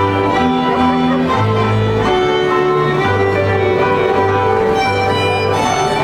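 Moravian folk band music with fiddles leading over a low bass line, played for a folk dance.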